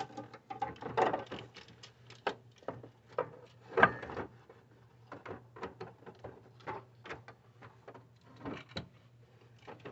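Irregular knocks, clunks and clicks as a replacement A/C compressor is worked down into a car's engine bay, metal bumping against brackets and hoses. The loudest knocks come about a second in and just before four seconds in. A low steady hum runs underneath.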